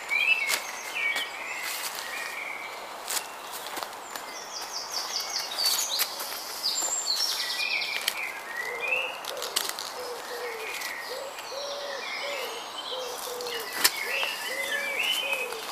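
Woodland birds singing and chirping, with a fast high trill about six seconds in and a low call repeated over and over through the second half. A few sharp clicks and knocks come from tent pegs being pushed in and the tent being handled.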